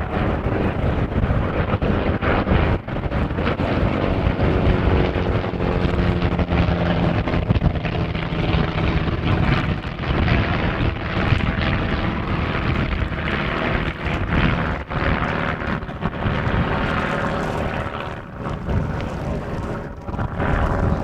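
Two propeller-driven aerobatic biplanes running their piston engines through display manoeuvres, the engine and propeller note rising and falling in pitch. Wind buffets the microphone.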